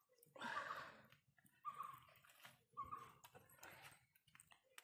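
Faint handling sounds, a few short rustling bursts, as a cloth-wrapped hand grips and lifts a hot coconut-shell puttu mould off a steaming pot.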